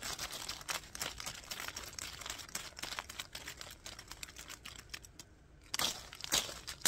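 Leaves rustling and crinkling right against the microphone in quick crackly strokes, with a brief lull about five seconds in before louder rustles.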